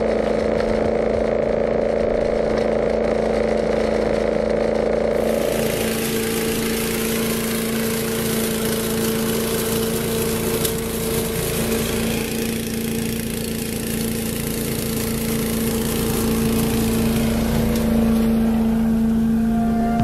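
SCAG Giant-Vac walk-behind leaf vacuum running: its small petrol engine and impeller give a steady drone with a held hum, over the rush of air and leaves being drawn in. The sound changes abruptly about five seconds in, then goes on steadily.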